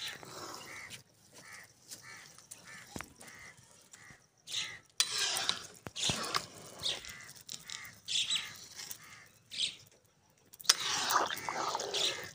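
Long metal slotted spoon stirring and turning steaming rice in a large aluminium pot: rustling and scraping, with a few sharp knocks of metal on metal. About a second in, a bird calls repeatedly for a few seconds.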